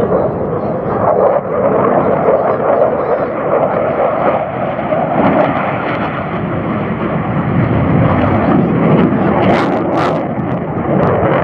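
F-16 fighter jet's engine on afterburner, a loud steady rushing noise as the jet climbs past. Two short sharp crackles come about a second and a half before the end.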